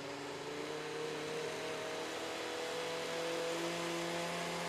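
Countertop blender motor running steadily, whirring through a thick pancake batter of bananas, almond milk and oat flour, a load heavy enough that the jar has to be stirred between runs.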